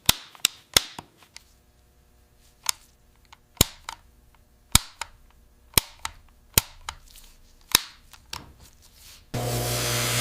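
Sharp clicks and knocks at irregular intervals, roughly one a second, some with a brief ring, from work on metal parts. About nine seconds in, a steady hissing machine hum starts abruptly.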